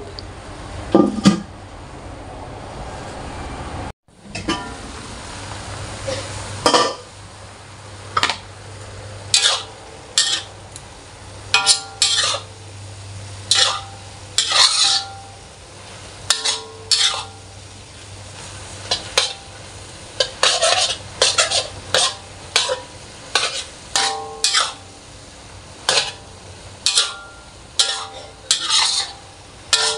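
Metal spatula scraping and clanking against a wok as rice vermicelli with cabbage and meat is stir-fried and tossed, in irregular strokes about once a second with a short metallic ring, over a low sizzle. The strokes start a few seconds in.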